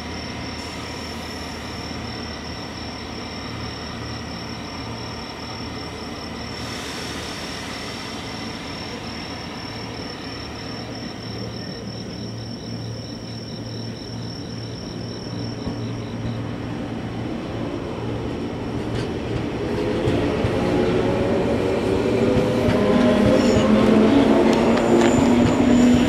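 A JR 115-series electric train stands with a steady low hum and then pulls away, its motors' whine climbing in pitch and growing louder through the last third. Autumn insects chirp with a steady high pulsing note until the train drowns them out.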